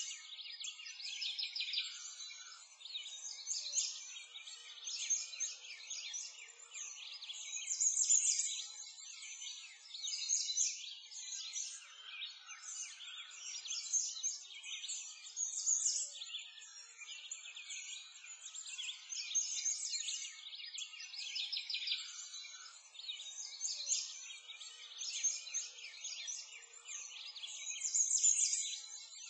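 Dense chorus of birdsong: many overlapping quick chirps and trills, high-pitched and thin, swelling louder about eight seconds in and again near the end.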